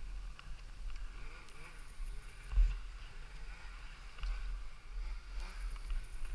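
Rustling, snow crunching and handling noise as a stuck, tipped-over snow bike is worked free of deep snow by hand, with a low rumble on the microphone and one sharp thump about two and a half seconds in.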